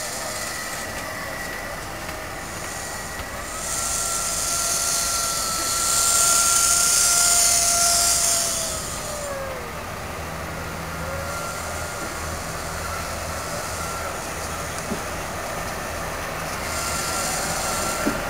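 Coaches of a failed HST being pushed slowly out of a station. There are loud bursts of air hiss, and thin squealing tones from the wheels slide down and fade about nine seconds in. A low steady drone joins about ten seconds in.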